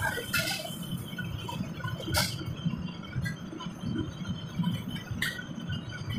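Commercial gas wok burner running with a low, throbbing rumble, with three sharp clanks of a metal ladle against a wok. A brief splash of water comes right at the start.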